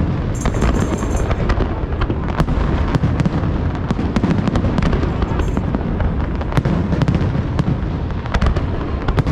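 Display fireworks going off in a dense barrage: a continuous low rumble with many sharp cracks in quick succession.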